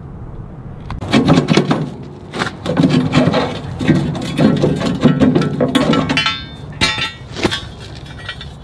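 Knocks and clanks from a worn steel snow plow cutting edge being handled and set against the plow blade.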